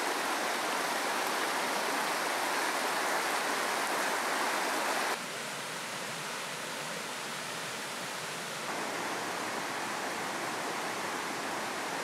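Rushing water of a rocky mountain stream tumbling over boulders in small cascades, a steady roar that drops in level about five seconds in and rises slightly again a few seconds later.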